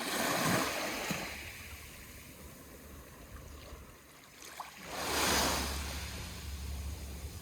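Small Aegean Sea waves washing in, twice: one at the start and another about five seconds in, each a rising and fading wash.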